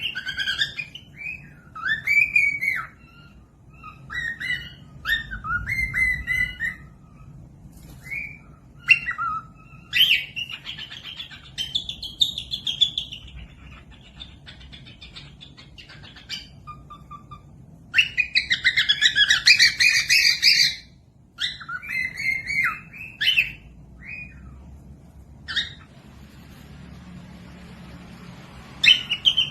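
Cockatiel chirping and whistling in short, repeated calls, with a loud, dense run of chattering calls about two-thirds of the way through.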